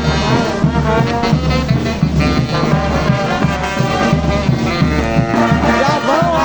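Brass orchestra playing, trombones and trumpets over a steady drum beat.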